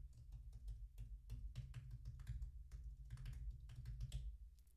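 Typing on a computer keyboard: a quick, uneven run of key clicks over a low rumble, stopping shortly before the end.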